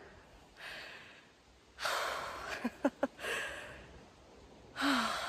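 A woman breathing hard from walking uphill: about four heavy breaths, the loudest about two seconds in, with a short voiced sigh falling in pitch near the end.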